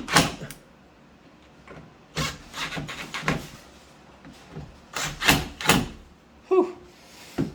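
Hinge screws being tightened into a wooden door: several short bursts of scraping, creaking driving noise, in groups about a second apart.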